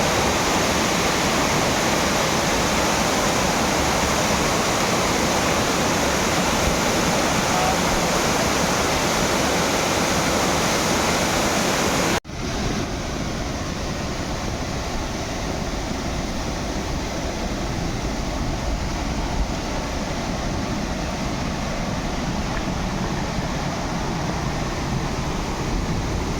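Steady rush of a waterfall. About twelve seconds in there is a sudden cut, after which the rush is a little quieter and duller.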